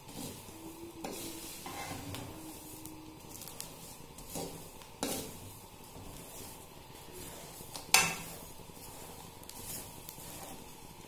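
Metal spoon stirring corn kernels through hot salt in a stainless steel pan, salt-roasting the corn: a continuous stirring noise broken by several sharp clinks of the spoon against the pan, the loudest about eight seconds in.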